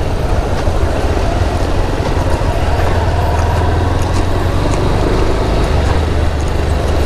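Motorcycle under way on a road, recorded from the rider's own bike: a steady engine hum mixed with heavy, unbroken low wind rumble.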